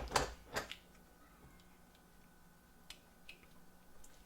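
Sharp plastic clicks and knocks of a 12 V battery pack being fitted into its charger: three close together in the first second, then two fainter ones about three seconds in.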